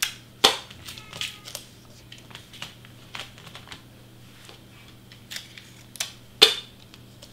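Scotch tape being handled: short sharp snaps and clicks as tape is pulled from the roll and torn off, with light rustling of cardstock. The loudest snaps come about half a second in and again near the end.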